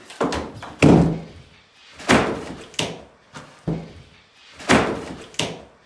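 A series of about six heavy knocks and thuds, roughly one a second, the one about a second in the loudest, from wood and demolition debris being handled in a gutted room.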